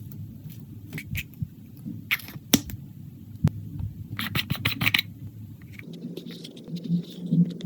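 Clear slime being worked by hand, giving irregular sticky clicks, pops and crackles, with a quick cluster of them about four to five seconds in, over a steady low hum.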